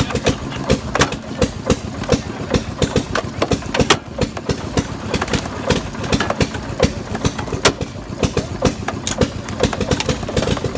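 Engine-driven log splitter running steadily, its engine droning under a rapid, uneven clatter of mechanical knocks.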